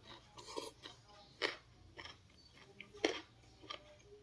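Small eating sounds from a person eating a bowl of noodles: two sharp clicks about a second and a half apart, with fainter ticks and chewing noises between them.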